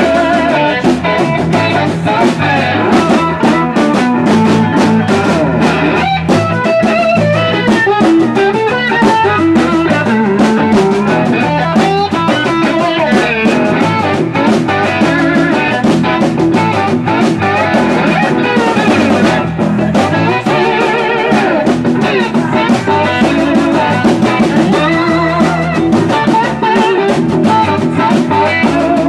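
Live blues band: a Gibson SG electric guitar played with a slide leads with gliding, wavering notes over bass and a drum kit.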